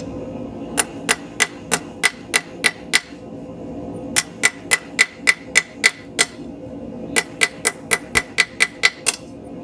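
Blacksmith's hammer striking a steel bar on the anvil to straighten a freshly drawn square taper. The blows come in three quick runs of about three a second with short pauses between, and each strike has a bright ring.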